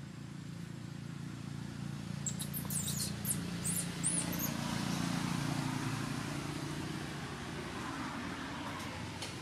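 A vehicle engine running as a steady low hum, with a quick run of high chirps about two to four seconds in.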